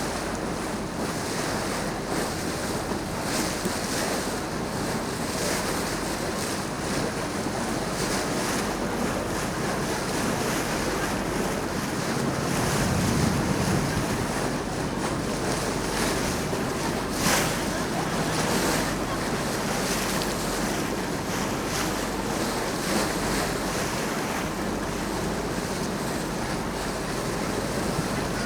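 Wind buffeting the microphone and water rushing along the hull of a tour boat under way, a steady rushing noise, with one brief click partway through.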